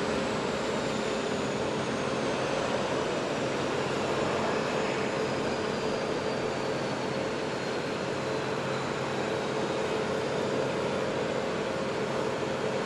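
Aircraft engine noise on a flight line: a steady rushing roar with a faint high whine that slowly falls in pitch.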